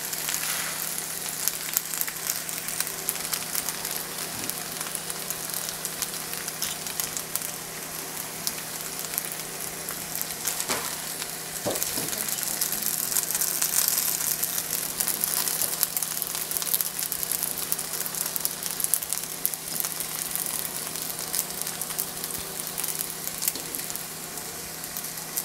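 Pad thai noodles with chicken and shrimp sizzling in a hot nonstick pan, a steady crackle throughout, with a couple of louder clicks from the utensil about halfway through as the noodles are lifted out.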